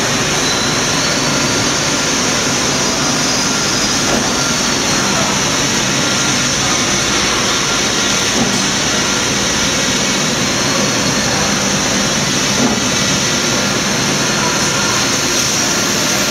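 Single-facer corrugating machine running steadily: a continuous, even mechanical noise with a faint steady hum under it.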